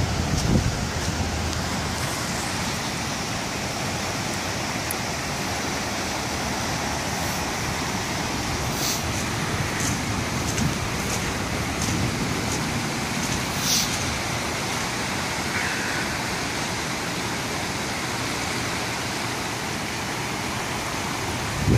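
Steady rushing noise of a creek in flash flood, fast brown floodwater running high, blended with road traffic.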